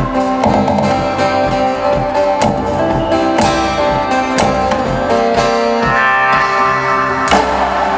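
Live instrumental music: plucked strings and long sustained notes over a steady beat.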